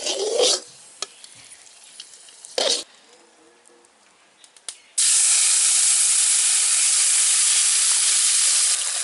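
Thin wheat-flour-and-water batter poured into a hot aluminium kadai, hissing and sizzling loudly the moment it hits the hot metal about halfway through, then holding steady. Before that, a ladle scrapes briefly in the pan.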